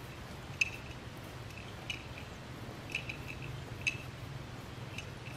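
Short high-pitched chirps repeating about once a second, over a faint low hum.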